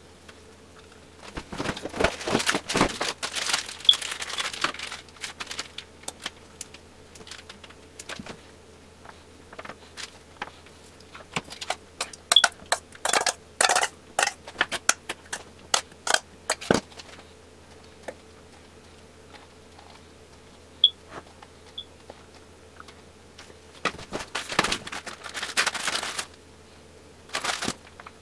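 Kitchen handling noises in three main clusters: crinkling of wonton wrappers and clinks and scrapes of a metal spoon against a stainless steel bowl and a metal muffin tin, over a faint steady hum.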